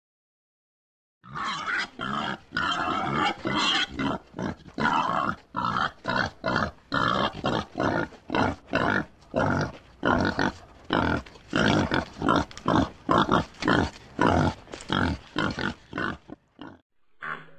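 Pigs grunting: a quick run of short grunts, about two to three a second, starting a little over a second in and stopping near the end.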